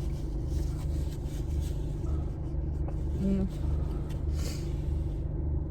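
Steady low rumbling hum of an idling car with its air conditioning running. A short hummed vocal sound comes about three seconds in.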